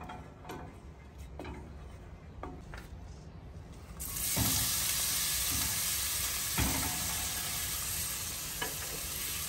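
A spoon clicking softly in a stainless steel pan of melting lard, then, about four seconds in, chopped onion tipped into the hot lard starts a steady sizzle, with a couple of light knocks from the cutting board and spoon.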